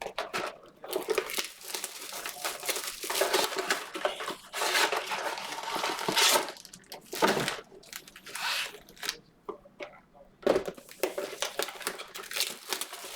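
Crinkling and tearing of plastic wrapping as trading-card boxes and packs are opened, in irregular crackly bursts with short pauses.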